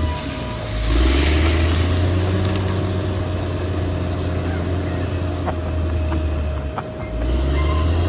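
Caterpillar D6R XL bulldozer's diesel engine running steadily, its low note dipping briefly about a second in and again near the end, with a few sharp clanks in the second half.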